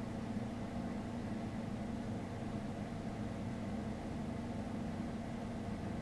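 Steady low rumble and hiss with an unchanging hum. No bird calls or sudden sounds stand out.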